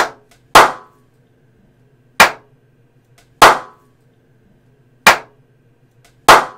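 Six sharp hand claps, one or two seconds apart, each dying away quickly: a clap test of a small room's echo and acoustic treatment.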